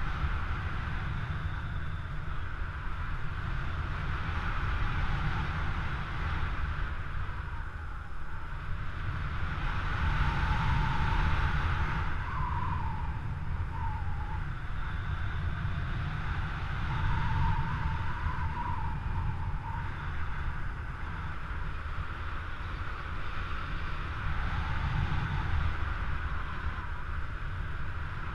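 Wind rushing over the microphone of a camera on a paraglider in flight: a steady low rumble with a hiss over it. A faint wavering whistle comes in about ten seconds in and again a few seconds later.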